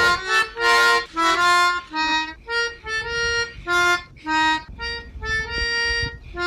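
Harmonica playing a melody of short, separate notes, about two a second, often with two reeds sounding together.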